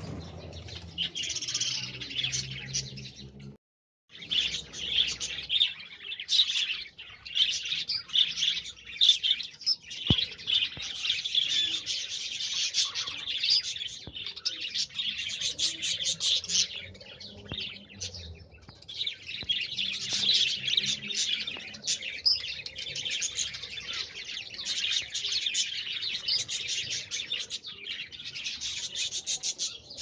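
A flock of budgerigars chattering with dense, continuous chirping, broken by a brief silence about four seconds in.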